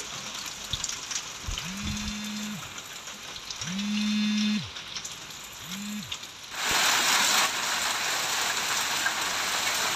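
Heavy rain mixed with hail, hissing steadily as it beats down on the ground, and much louder from about six and a half seconds in. Earlier, three low, drawn-out tones sound, the last one short.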